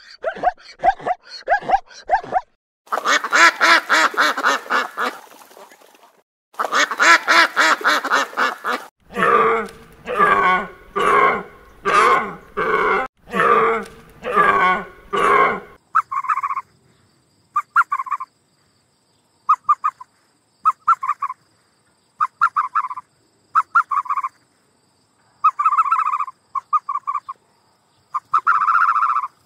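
A series of animal calls in abruptly cut segments: long calls in the first few seconds, then a steady run of calls about one every three-quarters of a second, then short calls in small clusters about once a second for the second half.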